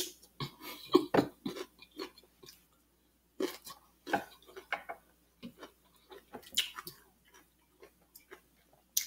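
Close-miked chewing of a bite of cucumber: irregular short crunches and wet mouth smacks with no steady rhythm.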